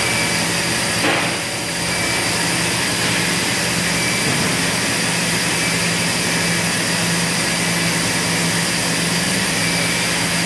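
Steady machinery drone with a constant hum, as the pumps of a Frigel Microgel temperature control unit run in reverse to draw the cooling water out of an injection mold.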